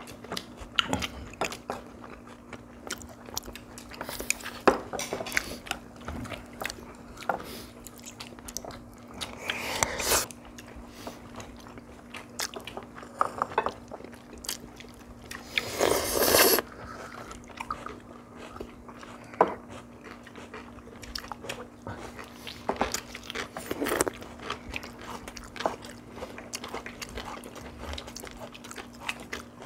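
People eating: biting and chewing, with crisp lettuce wraps crunching and chopsticks clicking on dishes. There are two louder crunches about ten and sixteen seconds in, over a faint steady hum.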